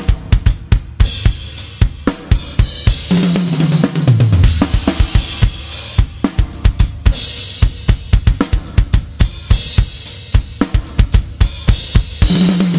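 Drum kit played in a steady groove, with the Goliath snare drum picked up by a microphone under the snare. Quick kick, snare and hi-hat strokes run under cymbal wash, broken about three seconds in and again near the end by a tom fill that steps down in pitch.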